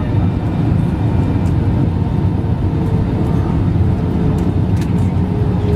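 Steady low rumble of the Airbus A320's engines and airflow heard inside the passenger cabin, with a faint steady hum above it.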